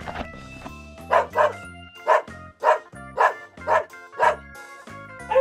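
A dog barking in a series of short barks, about two a second, starting about a second in, over background music.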